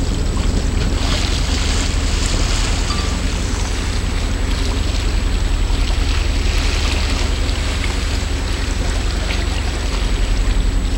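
Boat under way, with water rushing and splashing along the hull and wind on the microphone over a steady low rumble.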